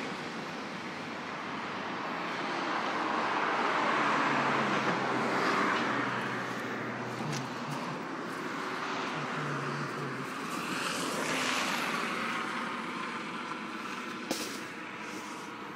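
Bus interior noise while riding: the engine and road noise swell and ease twice, with a faint low engine hum. A single sharp click comes near the end.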